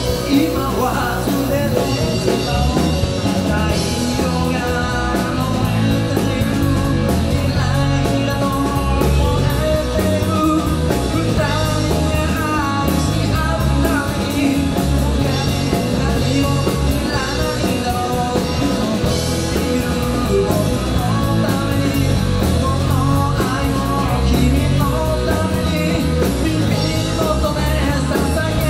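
Live rock band playing loudly: drums, electric bass and electric guitar, with a melody line over them that includes singing.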